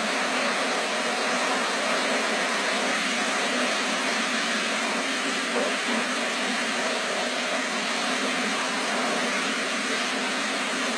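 Fast-flowing floodwater in a swollen river rushing past: a steady, even noise that holds unchanged throughout.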